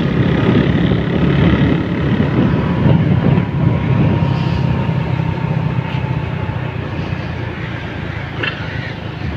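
Engine and road noise of a motor vehicle driving along a road: a steady low rumble that grows a little quieter in the second half, with one short click near the end.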